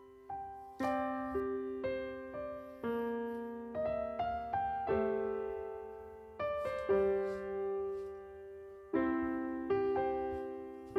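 Background music: a slow, gentle solo piano piece, with single notes and chords struck one after another and each left to fade.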